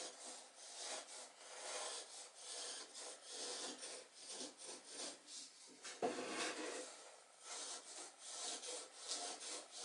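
Small wooden block sliding and rubbing across a wooden workbench in repeated short, faint scraping strokes, as a pencil fixed to it traces a waterline along a toy boat's hull; one stroke about six seconds in is louder.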